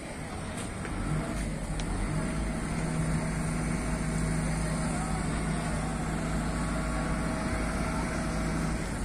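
Engine of a large mechanised passenger boat running, growing louder about a second in and then holding a steady low hum.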